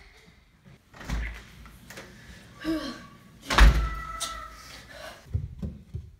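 A thump about a second in, then a louder bang about three and a half seconds in, like a door banging shut, followed by a few smaller knocks near the end.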